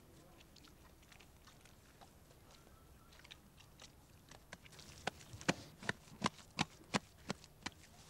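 Faint handling sounds of wet clay-and-straw daub being worked by hand. From about five seconds in comes a run of about eight sharp slaps or knocks, nearly three a second.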